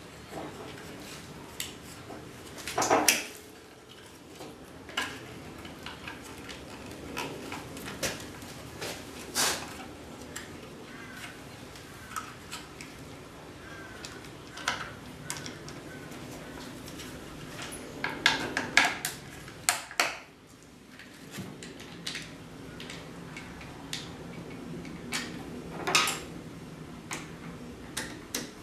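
Irregular clicks, taps and small clatters of plastic and metal parts being handled on an electric wire-rope hoist's switch housing as it is wired up, with louder clatters about three seconds in, around eighteen to nineteen seconds, and near twenty-six seconds.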